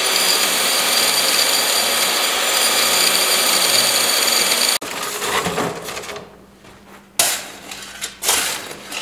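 Table saw running and ripping a sheet of extruded polystyrene foam insulation board: a steady loud whine that cuts off suddenly about five seconds in. Then a shovel scraping and striking hard, rocky dirt, with a few sharp strikes near the end.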